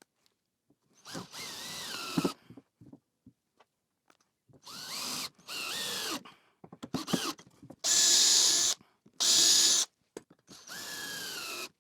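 Power drill driving screws into pre-drilled construction timber in a series of short runs of about a second each, the motor's pitch shifting as each screw goes in. Two runs near the middle are louder and harsher than the rest.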